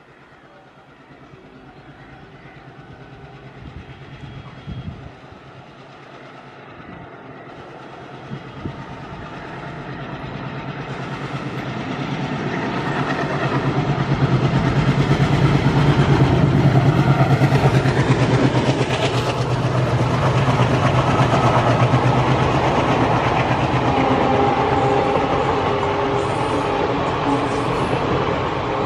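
Indian Railways WDM-series ALCO diesel locomotive chugging as it hauls a passenger train toward the track-side, growing steadily louder to a peak about halfway through as it passes. The coaches' wheels then clatter over the track as the train streams by.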